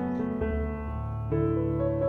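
Background music: gentle piano chords changing every half second or so.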